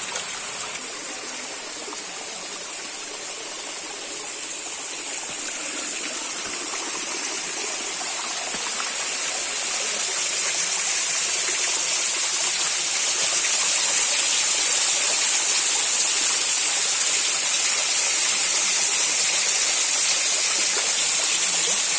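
Running water rushing steadily, like a stream or small waterfall; it grows louder over the first half and then holds steady.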